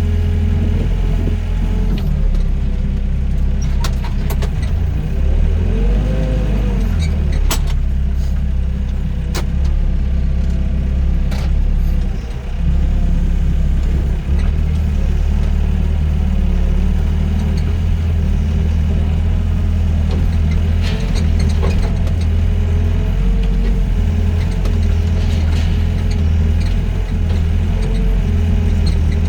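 Doosan DX55 mini excavator at work: its diesel engine runs steadily under a constant whine, which swells briefly about six seconds in. A few sharp knocks come in the first half.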